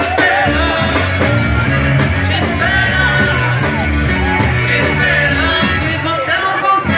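Live forró band playing: a woman sings the lead over accordion, electric guitar and drums, with a steady bass line beneath.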